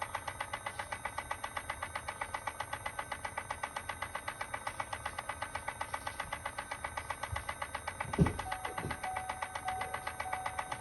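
Rapid, even clicking, about eight clicks a second, from a 2018 Chevrolet Volt's transmission, which the owner takes for a transmission fault. About eight seconds in come two low thumps, followed by a faint, broken beeping tone.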